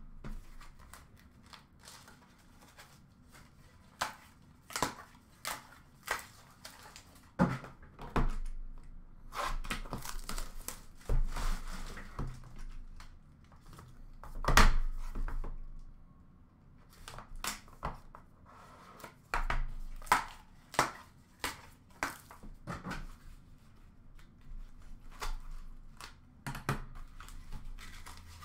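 A trading-card box being opened by hand: plastic wrapping crinkling and tearing, with irregular clicks and taps as the box and wrapped cards are handled. The loudest crackle comes about halfway.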